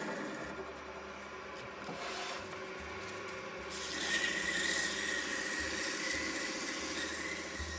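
Wood lathe running, with a chisel cutting a small spinning wooden dowel. About four seconds in, a louder, brighter hiss takes over as sandpaper is held against the spinning wood.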